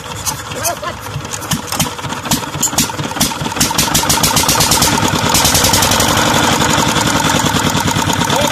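Single-cylinder Petter diesel engine just started, its firing beats quickening over the first few seconds and then settling into a steady fast run.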